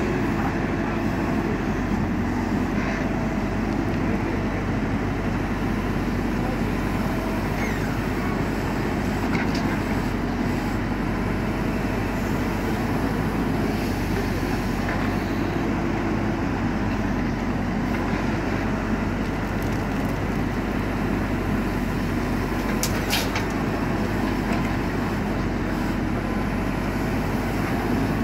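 JCB 4CX backhoe loader's diesel engine running steadily while working, with one sharp clank about three-quarters of the way through.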